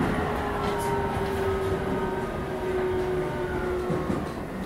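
Keio 9000 series electric train running, heard from on board: a steady rumble of wheels on rail with the motor whine slowly falling in pitch, fading out near the end.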